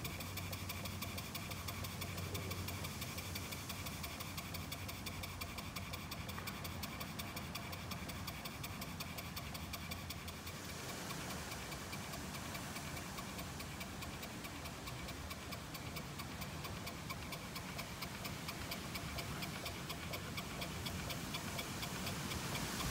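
Maxitrak 1-inch scale Burrell live-steam traction engine's single-cylinder engine running, with a rapid, even ticking beat.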